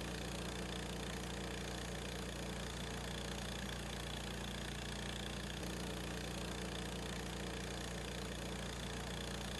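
Harbor Freight sawmill's gas engine running steadily, with no change in speed.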